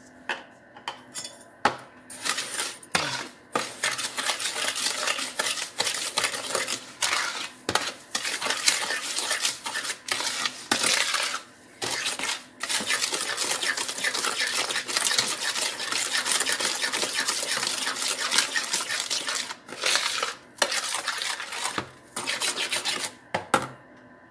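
Metal spoon beating eggs and sugar in a plastic bowl: rapid, steady clinking and scraping of the spoon against the bowl, broken by a few brief pauses.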